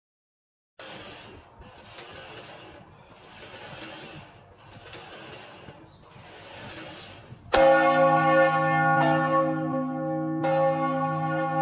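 After a moment of silence and a faint noisy background, a large church bell rings out loudly about seven seconds in. It is struck again roughly every second and a half, and its deep tones keep sounding between the strikes.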